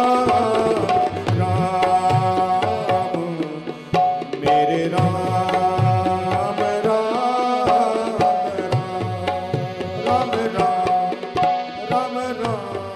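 Ramlila devotional singing: a male voice draws out long sung notes over steady held accompaniment notes, with dholak drumming throughout.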